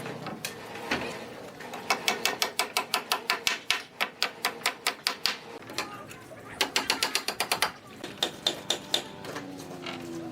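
Rapid runs of light, sharp tool strikes on wood, about five or six a second, in three bursts with short pauses between them.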